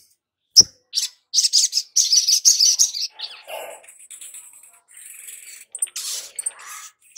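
Male olive-backed sunbird singing in its cage: rapid high chirps and twittering trills, loudest from about one to three seconds in, then softer calls. A single short thump about half a second in.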